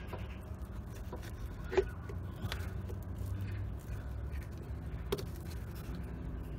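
A new rubber steering rack boot being worked onto the rack by gloved hands: faint rubbing and scraping with a few sharp clicks, the loudest about two seconds in, over a low steady background hum.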